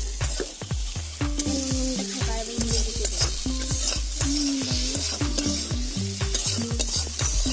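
Fish pieces frying in oil in a kadai with a steady sizzle, while a metal spatula stirs them and scrapes and knocks against the pan in many quick clicks.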